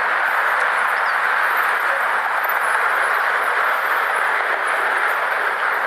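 Steady rushing of wind and road noise from riding an e-bike in traffic, with no distinct pitch or beat.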